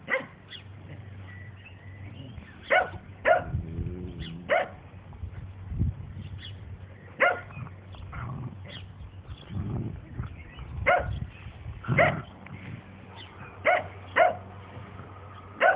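Dandie Dinmont terriers barking in play: about a dozen short, sharp barks at irregular intervals, with a brief low wavering sound a few seconds in.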